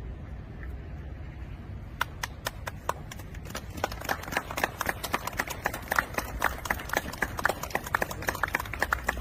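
A small group of people clapping: scattered claps start about two seconds in and build to steady, dense applause.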